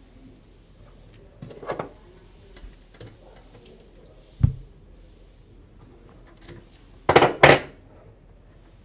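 Plumbing fittings and tools being handled under a sink as valve blocks are disconnected from the water lines: scattered clicks and clinks, a knock about four and a half seconds in, and two loud quick noisy bursts near the end.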